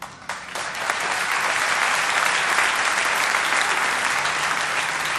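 Applause from a concert audience, with the band joining in. It builds over the first second, holds steady, and eases a little near the end.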